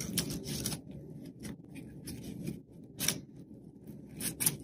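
Paper towel strip rustling and crinkling in irregular bursts as it is scrunched and wrapped around a paper flower stem, with sharper crackles about three seconds in and near the end.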